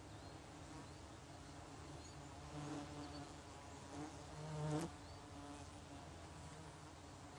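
A flying insect buzzing past close by. It swells twice, about two and a half seconds in and again just before five seconds, where it is loudest and cuts off abruptly.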